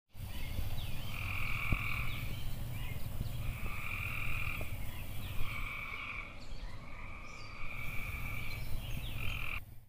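Frogs calling: a trilled croak about a second long, repeated every couple of seconds, with short rising chirps between the calls, over a low steady rumble.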